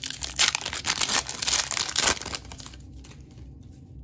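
Foil wrapper of a Panini Donruss basketball card pack crinkling and tearing as it is ripped open by hand. The noise is loud for about two seconds, then drops to a much quieter rustle.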